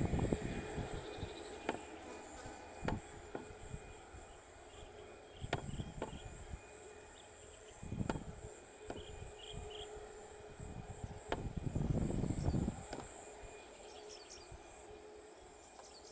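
Outdoor field ambience: insects trilling steadily on a thin high note, with a few short bird chirps and irregular low gusts of wind on the microphone, the strongest about twelve seconds in.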